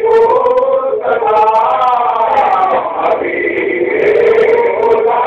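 Male voices chanting a Sufi devotional hymn, in long held notes that glide slowly up and down.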